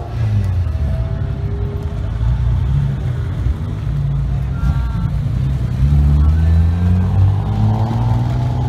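Car engines and exhausts running at low speed as lowered cars drive slowly away: a deep, steady drone whose pitch shifts slightly a few times.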